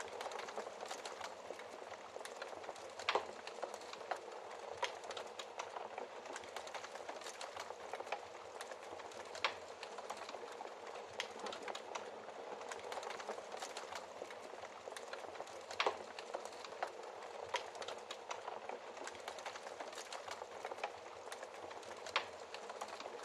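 Wood fire crackling steadily in a fireplace, with frequent small crackles and a few louder sharp pops.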